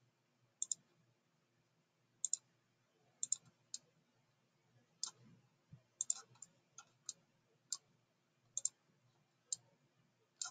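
Computer mouse button clicks: a string of sharp clicks at irregular intervals, many in quick pairs, over faint room hiss.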